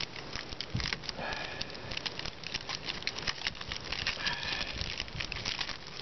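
Dense, irregular light crackling and rustling, with two faint short high chirps about a second in and again past the middle.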